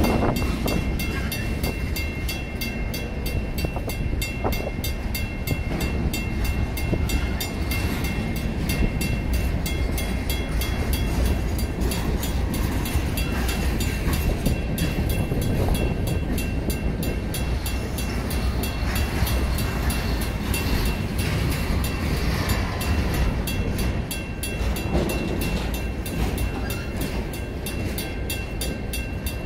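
Freight train of empty center-beam flatcars rolling steadily past, a continuous rumble and wheel noise on the rails. Over it, the grade crossing's WCH first-generation mechanical bell rings on without a break, sounding the warning while the crossing lights flash.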